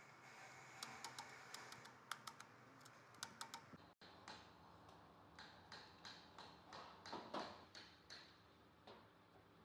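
Faint light clicks and taps of hands working copper coil wire and paper slot insulation into the stator slots of a large three-phase AC motor during rewinding. The clicks are irregular at first. After a brief dropout about four seconds in, they come more evenly.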